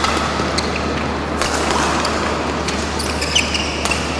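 Badminton rally: a shuttlecock struck back and forth by rackets in several sharp hits, with a shoe squeaking on the court about three seconds in, over the steady hum of a large sports hall.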